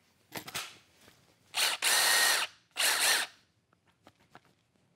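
Milwaukee M18 FUEL Gen 3 impact driver motor whining as the trigger is pulled twice, first for about a second and then more briefly. It spins freely with no impacting, after a small click.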